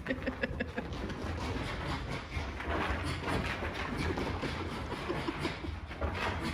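Two dogs running and tussling in play, their paws thudding and scrabbling on the floor in quick, irregular patters, with a few short low sounds from the dogs.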